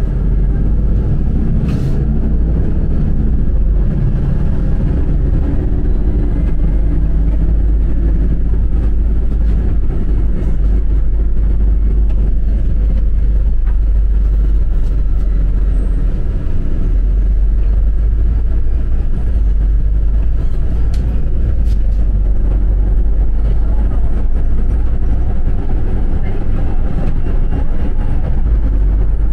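Cabin noise inside a moving city bus: a steady, deep engine and road rumble with a few light clicks and rattles.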